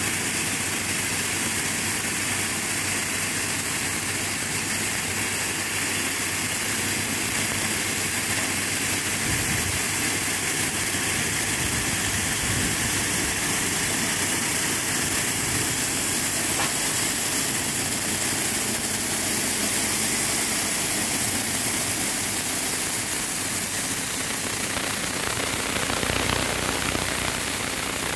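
Wheat cleaning machine running steadily, giving a constant mechanical rush.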